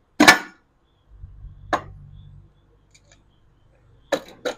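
Metal knocks and clinks as the two halves of a motorcycle engine's crankcase are fitted together over the gasket: a sharp knock at the start, another about a second and a half later over a low rumble, and two quick knocks near the end.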